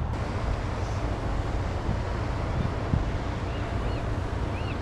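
Wind buffeting the microphone: a steady rush of noise, heaviest at the low end, with two faint high chirps near the end.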